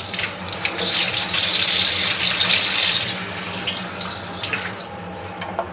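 Kitchen tap running over a bunch of long green vegetable stalks being rinsed in a stainless steel sink. The water is loudest for the first three seconds, then eases off, with a couple of light knocks near the end.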